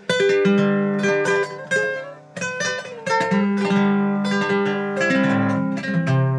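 Acoustic plucked-string instruments of the guitar family, starting abruptly and playing a quick picked melody over lower bass notes.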